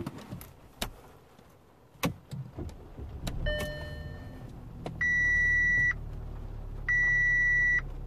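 Audi A4 1.8 petrol four-cylinder engine started with a few clicks and then idling smoothly, its misfire cured by a replacement ignition coil. Over the idle, dashboard warning chimes sound: one soft chime, then two loud beeps of about a second each.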